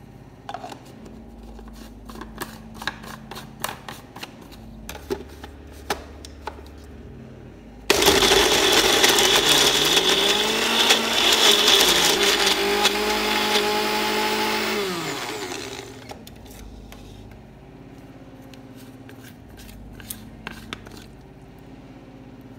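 Sunhouse blender's motor grinding raw pork and carrot with a little water into a fine paste. First come several seconds of plastic clicks and knocks as the blade cup is fitted. Then the motor starts suddenly and runs loud for about seven seconds, its pitch wavering as the load changes, and spins down with a falling whine, followed by a few more clicks as the cup is taken off.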